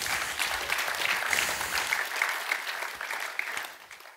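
Congregation applauding, the clapping dying away over the last second or two.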